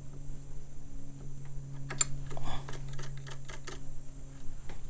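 Light, irregular metallic clicks and taps of a 10 mm wrench turning the loosened jam nut on a motorcycle's gear shifter linkage rod.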